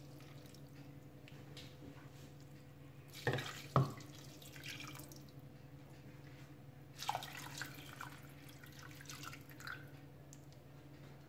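Water poured from a cup into a pressure cooker of rice for biryani, splashing in separate pours, over a faint steady hum.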